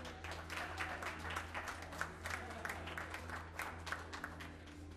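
Audience applauding: dense, irregular clapping from many hands.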